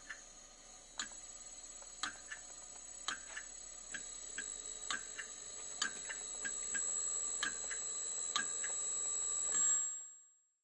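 Yaskawa AC servo motor under test, running with a steady high-pitched whine and irregular sharp ticks about once a second, with fainter ticks in between. The sound slowly grows louder, then fades out near the end.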